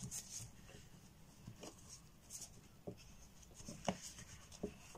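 Paper towel rubbing and scrubbing across a plastic-coated craft mat under gloved hands, a faint scratchy wiping. A few light taps and knocks come in between, the sharpest about four seconds in.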